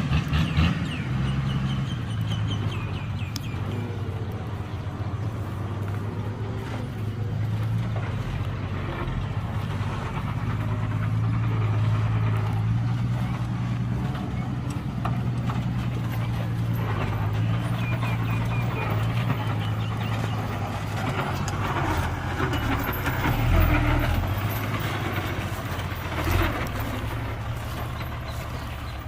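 Heavy diesel engine of earthmoving machinery running steadily, its level rising and falling with load, with a couple of knocks near the end.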